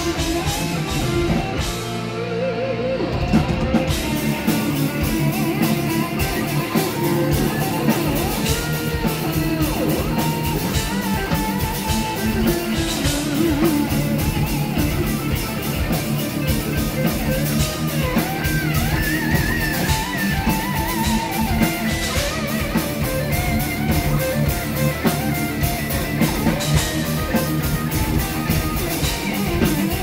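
Live instrumental heavy metal band: a lead electric guitar plays a melody with bending, sliding notes over distorted rhythm guitar, bass and drum kit. The cymbals come in full about four seconds in.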